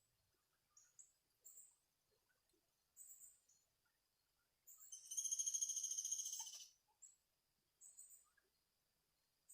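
Small birds chirping: short, high chirps about once a second, with one louder, rapid, buzzy trill for nearly two seconds around the middle.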